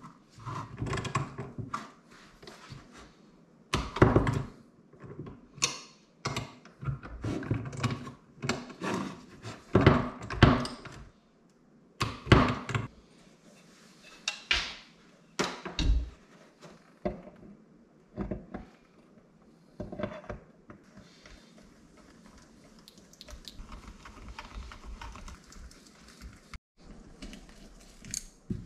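Hand tools and metal engine parts knocking and clinking on a workbench in irregular thunks, a second or two apart, as a Rotax 122 two-stroke engine's crankcase is worked on by hand.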